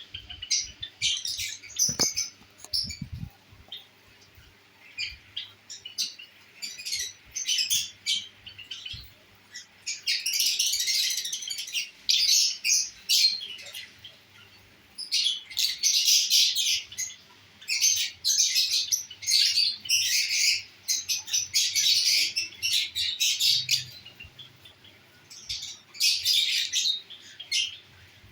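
Pet lovebirds chirping and squawking in shrill, rapid bursts, with short pauses between them. A few soft knocks come about two to three seconds in.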